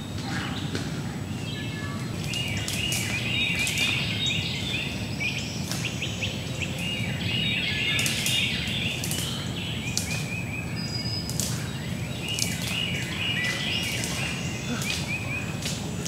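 Woodland songbirds singing: repeated phrases of quick high notes in three spells, with scattered short chips, over a steady low background rumble.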